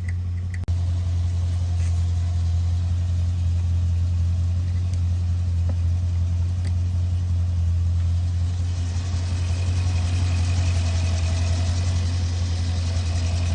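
A car engine idling steadily, with a short break in the sound under a second in and a hiss that builds in the last few seconds.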